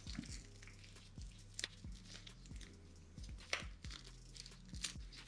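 Faint handling sounds of cloth harness tape being worked around a car's wire harness: crinkling, with a few sharp clicks. Quiet background music with deep bass notes plays underneath.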